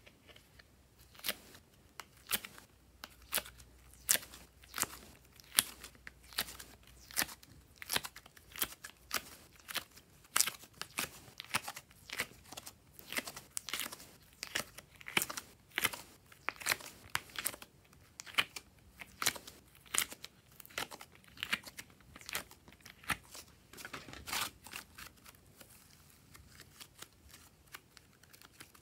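Glossy blue slime being peeled out of the cells of a plastic honeycomb mould and stretched by hand: a run of short sticky pops and crackles, one or two a second, thinning out near the end.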